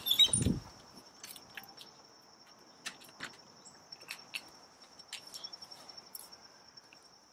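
Crickets chirring in a steady, high, continuous trill, with a loud thump near the start and a few scattered faint ticks.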